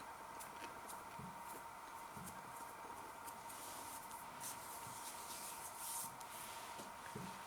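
Faint chewing of a crispy-coated chicken bite with dip, with soft mouth clicks and a few low thumps, over a steady electrical hum.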